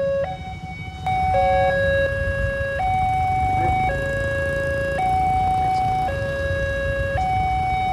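Railway level-crossing warning siren sounding a two-tone alarm, switching between a higher and a lower tone about once a second, with a brief dip just after the start. It means the barriers are down and a train is approaching.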